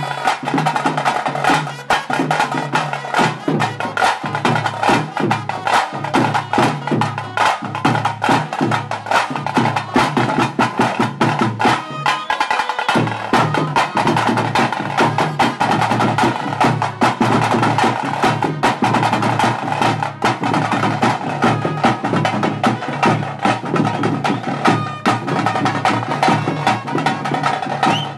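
Tase drums beaten fast with sticks in a steady rhythm, a deeper drum pulsing underneath: the beat that accompanies Pili Nalike tiger dancing. The deeper drum drops out briefly near the middle.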